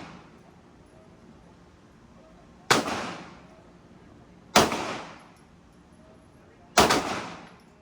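Three gunshots at a shooting range, about two seconds apart, each sharp crack followed by a decaying echo that lasts about a second.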